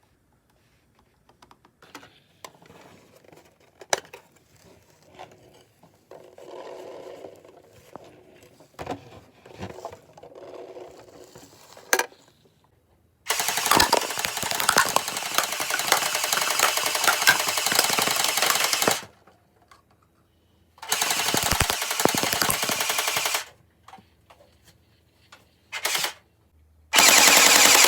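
Chinese-made toy airsoft gun firing on full auto in rapid bursts: a long burst of about six seconds, a shorter one of two or three seconds, a brief one, then another that runs on. Before the firing, a dozen seconds of faint clicks and handling noises.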